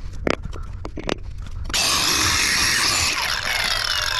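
A few sharp knocks, then about two seconds in a power tool starts and cuts steadily, its pitch sliding down as it bites. It is cutting off the old sewer pipe so a Fernco rubber coupling can be fitted.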